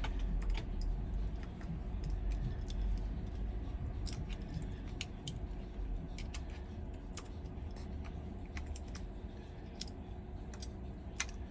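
Irregular small clicks and light taps of tools and small parts being handled while a part is fitted inside an iPhone 11, over a faint steady hum.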